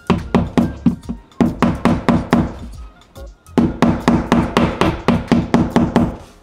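Claw hammer tapping a Toggler drywall anchor into drywall: quick, sharp strikes about four a second, in three runs with short pauses between.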